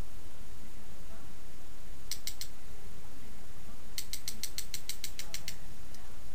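A small mechanism clicking like a ratchet: three quick clicks about two seconds in, then an even run of about a dozen clicks, some nine a second, lasting a second and a half.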